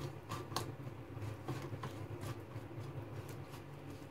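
Fingers mixing curd and spice powder into a wet paste in a stainless steel bowl: soft squelching with light irregular clicks against the metal, over a steady low hum.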